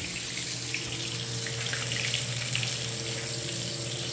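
Breaded fish frying in hot oil in a black skillet: a steady sizzle dotted with small crackles, over a low steady hum.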